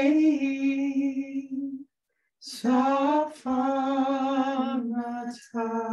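A woman and a man singing a slow song together without accompaniment, holding long steady notes in four short phrases with brief pauses between them, each phrase opening with a soft 's' sound.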